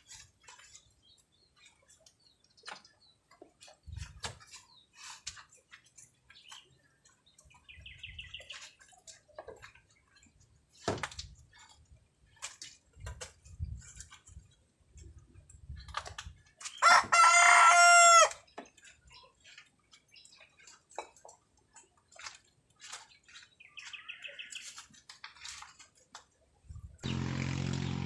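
A rooster crows once, loud, about seventeen seconds in, with a couple of short high calls and scattered faint knocks around it. Near the end a motor starts running steadily.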